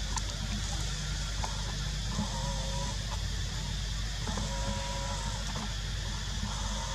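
Two drawn-out animal calls, each held at an even pitch for about a second, the second a little longer, over a steady low hum and hiss.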